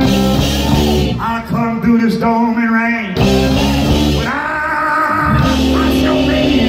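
Live gospel-blues band playing electric guitars and drums, with voices holding long, wavering sung notes over the band.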